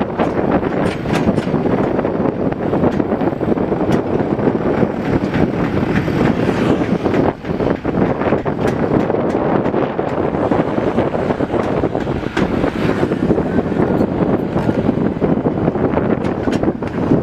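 Mini excavator's diesel engine running steadily as the machine works, with scattered clicks and knocks and wind on the microphone.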